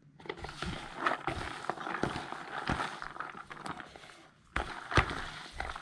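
Irregular taps, knocks and rustling of cooking handling work, with the sharpest knock just before five seconds in.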